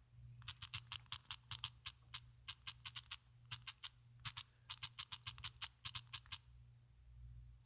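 Keyboard typing: rapid key clicks in short bursts with brief pauses between them, stopping about a second before the end.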